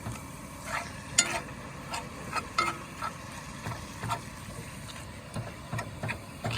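Lean ground bison browning in a little oil in a pan, sizzling, while a utensil stirs it with irregular scrapes against the pan about once or twice a second.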